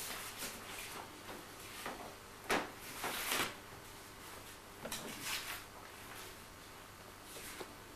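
Short, faint rustles of things being handled, with a sharp knock about two and a half seconds in.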